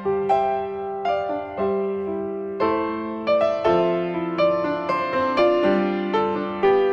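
Background piano music: a melody of held notes over a low bass line.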